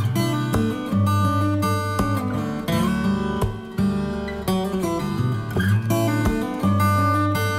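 Background music played on acoustic guitar, with plucked and strummed notes.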